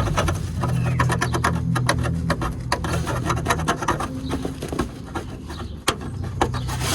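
Hand scraping and rubbing on the car: a run of quick, irregular rasping clicks over a low steady hum.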